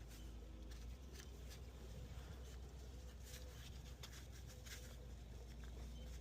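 Faint scratching and light taps of a paint marker dabbed on the transmission oil pan bolt heads to mark them, over a low steady hum.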